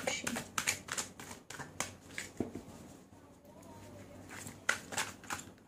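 A tarot deck being shuffled by hand: a quick run of crisp card flicks and snaps, a pause, then a few more flicks near the end.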